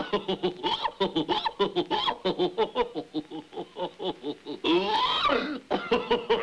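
Cartoon character laughing: a long run of quick, repeated 'ha' bursts, then a longer wavering vocal sound about five seconds in.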